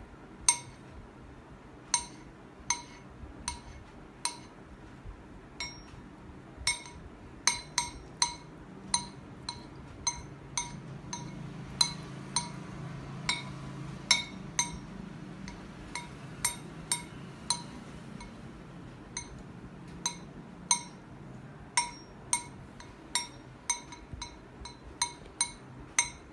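Kitchen knife chopping boiled egg whites on a metal plate: the blade strikes the plate in irregular clinks, about one to two a second, each with a short metallic ring.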